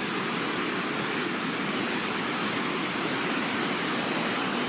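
Steady, even rushing of a river flowing through a rocky gorge.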